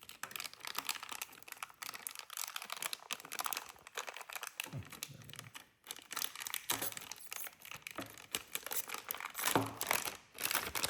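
Packaging crinkling and rustling in irregular bursts as a new hard drive is unwrapped, with a few handling knocks.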